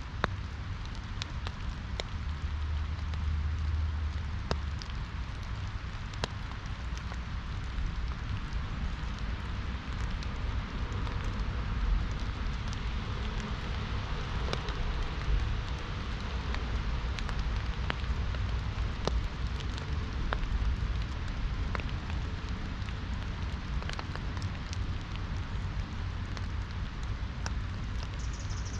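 Steady rain falling on an umbrella, with many single drops ticking sharply, over a low steady rush.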